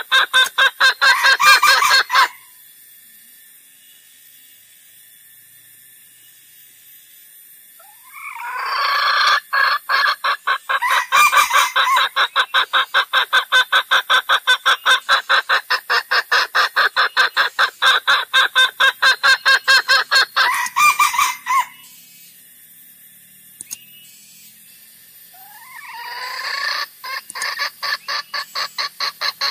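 Junglefowl clucking in long, fast runs of several clucks a second, in three bouts. The first ends about two seconds in, the long middle one runs about thirteen seconds, and the last starts near the end. Only a faint hiss lies between the bouts.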